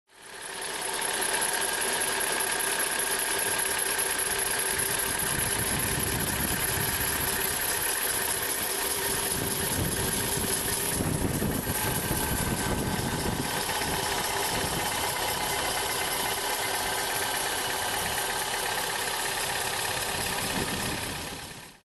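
Chevrolet Aveo T300 engine running at idle, with a steady high whistle and a rustling squeak from the alternator belt tensioner pulley. The sound is the sign of a failing tensioner pulley bearing.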